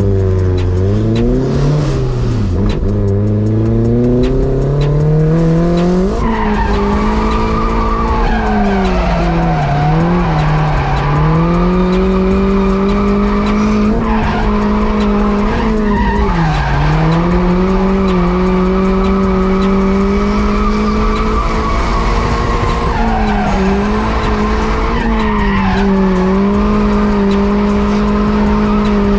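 Turbocharged Mazda Miata engine heard from inside the cabin, climbing in revs over the first few seconds and then held high through a drift with tires squealing. The revs dip briefly and recover several times.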